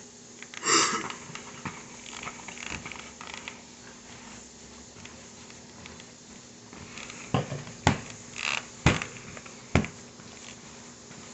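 Kitchen handling sounds while mixing food in a bowl: a short rustle about a second in, faint scraping, then several sharp taps or knocks near the end.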